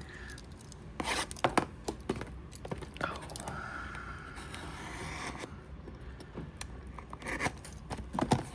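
Cardboard trading-card hanger boxes being handled and torn open: scattered sharp clicks and scrapes, with a longer tearing scrape about three seconds in that lasts around two seconds.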